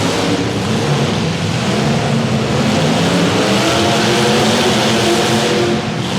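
Demolition derby car engines running loudly and revving, their pitch rising and falling.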